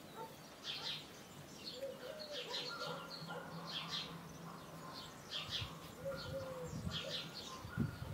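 Small birds chirping in quick bursts about once a second, with a low dove-like coo every few seconds. A few soft low thumps near the end.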